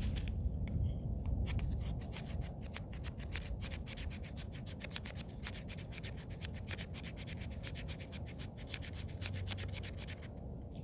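Mora carbon-steel knife scraping shavings off a stick of fatwood in rapid, repeated strokes, several a second. The strokes stop shortly before the end.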